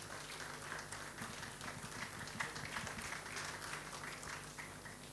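Applause from a small audience: scattered hand claps, thinning out near the end.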